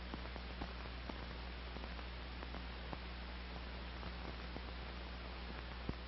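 Steady hiss and low hum with scattered faint clicks and crackles, one a little louder near the end: the background noise of an old film soundtrack, with no voice or music.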